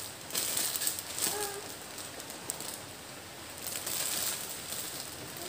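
Clear plastic clothing bag crinkling and rustling as a packaged T-shirt is handled and turned over, in irregular bursts, with a short faint pitched sound a little over a second in.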